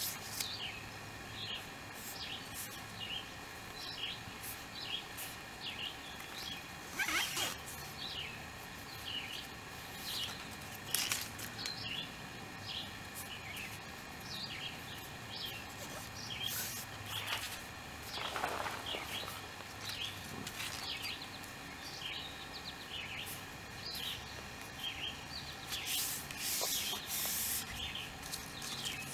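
Small birds chirping over and over in the background, short high calls scattered throughout, with a few brief scuffing rustles in between.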